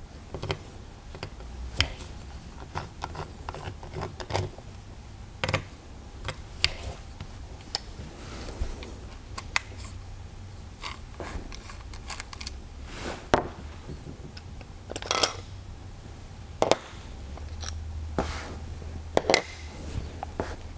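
Scattered clicks, taps and light scrapes of a hex screwdriver and metal airgun parts being handled while the cheek rest screw of an FX Wildcat air rifle is undone and the parts are set down on a table, over a low steady hum. A few sharper knocks stand out in the second half.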